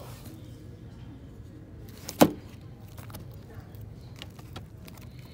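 Shrink-wrapped vinyl LP records being flipped through in a bin: light plastic rustles and small taps, with one sharp knock about two seconds in, over a steady low hum.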